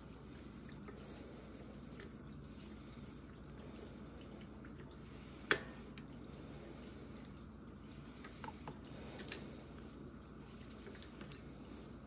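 Thread-seal (Teflon) tape being wrapped by hand onto a brass pipe fitting: faint handling noise with a few scattered small clicks, the sharpest about five and a half seconds in.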